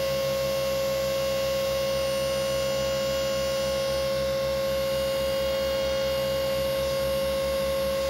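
Electric-over-hydraulic boat lift's pump unit running steadily under load, raising the boat: a constant whine over a fast, even low pulsing.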